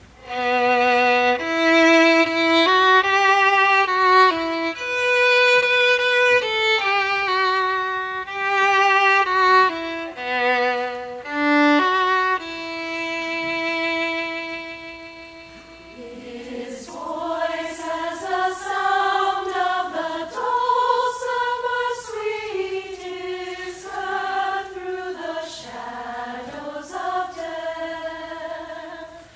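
A solo violin plays a slow melodic introduction, ending on a long held note about halfway through. A women's choir then enters singing the melody in unison.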